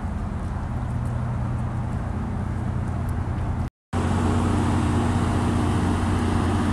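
Steady low engine drone with a few fixed low tones under outdoor traffic-like noise. It cuts out for a split second about four seconds in, then carries on slightly louder.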